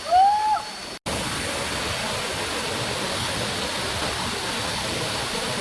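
Steady rush of a waterfall pouring into a pool, which starts abruptly about a second in. Just before it, a brief rising-and-falling voice-like "ooh".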